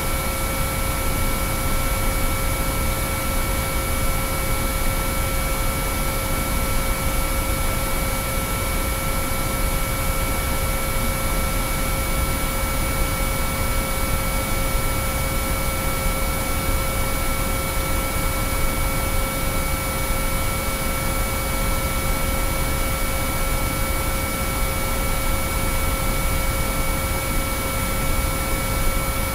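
Synthesized binaural-beat sine-wave tones: several pure pitches held perfectly steady over a constant bed of hissing noise, with no change throughout.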